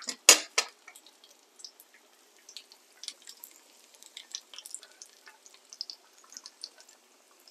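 Canola oil crackling and popping around a battered stuffed potato frying in a small pan, as scattered small pops throughout. A few sharp clacks right at the start as a spatula is set down by the plates.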